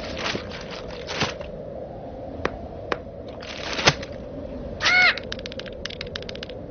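Sound effects for an animated bird: short scratchy noise bursts and clicks, then one loud bird call about five seconds in that rises and falls in pitch, followed by a quick run of clicks.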